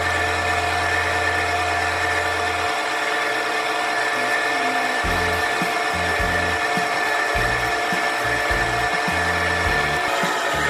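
Electric stand mixer running steadily at an even speed, its motor giving a constant whine as the beater mixes thick pumpkin cake batter in a metal bowl.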